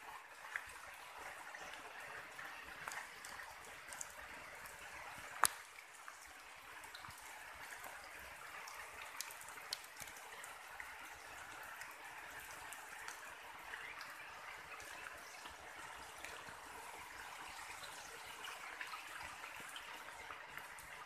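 Faint steady patter and trickle of water in wet forest, with scattered sharp drip-like ticks; one louder click about five and a half seconds in.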